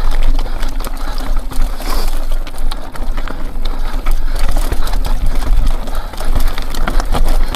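Mountain bike rattling down rough rock: tyres crunching over stone with frequent sharp clicks and knocks from the bike, over a steady low rumble.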